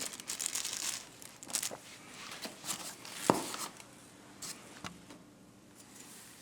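Handling noises while unpacking a fireplace tool set: scattered rustling and light clicks, with one sharp knock about three seconds in and a smaller one near five seconds, then quieter handling.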